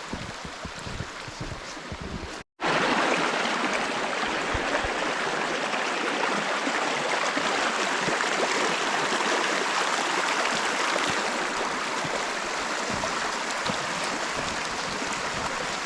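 Wind buffeting the microphone for a couple of seconds, then, after a sudden cut, the steady loud rushing of a running creek.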